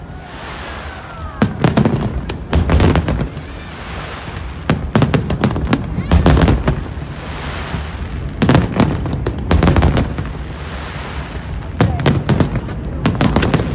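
Aerial fireworks shells bursting in rapid clusters of loud bangs, a volley every second or two, with a steady hiss between the bursts.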